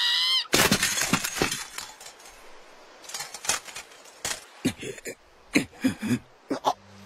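Anime crash and breaking sound effects: a burst of smashing about half a second in, then scattered sharp knocks and crashes, with short voice sounds near the end.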